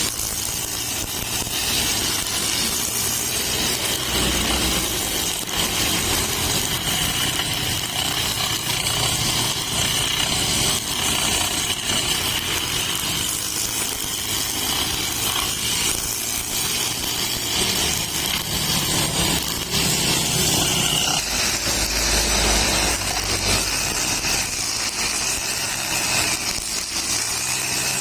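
Brush cutter fitted with a nylon string head, running at high revs with a steady high whine that drops in pitch about three quarters of the way through.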